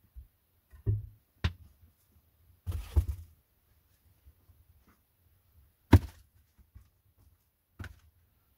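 Wood and a hatchet being handled: about five separate wooden thunks and knocks, with a short scuffling stretch around three seconds in and the loudest knock about six seconds in.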